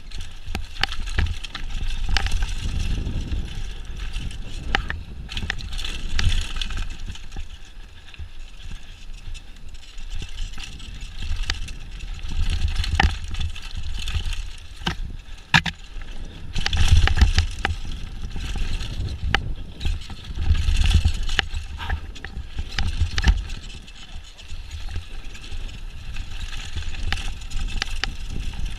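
Mountain bike ridden fast down a dirt and root-strewn trail, heard from a camera mounted on the rider or bike: wind buffeting the microphone and tyres running over dirt, with frequent sharp knocks and rattles from the bike as it hits roots and bumps.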